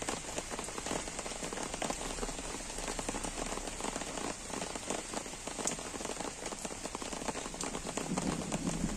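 Gentle rain falling steadily on trees and grass, with many separate drops heard close by. Near the end a low rumble of thunder starts to build.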